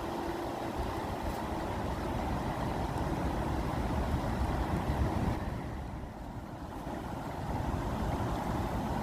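Water rushing steadily, dipping briefly about six seconds in.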